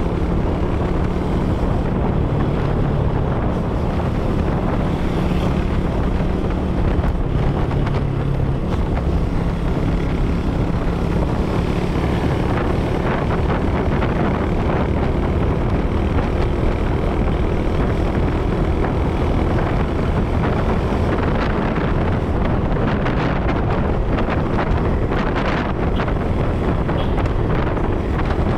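Engine of the vehicle carrying the camera running under way, its hum moving higher in pitch a little before halfway through. Steady road and wind noise buffets the microphone.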